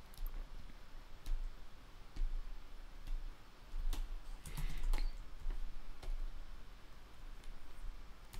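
Scattered clicks of a computer mouse and keyboard, roughly one a second, over a low steady hum.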